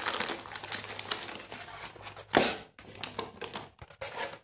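Plastic packaging bags crinkling and a polystyrene foam box being handled as the package is unpacked, an irregular run of rustles and clicks with one louder rustle about halfway through.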